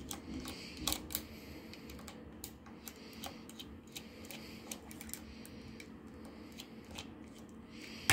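Irregular small clicks and ticks of a hand screwdriver turning out a small screw in an RC car's rear gearbox, with light handling taps on the plastic and metal parts.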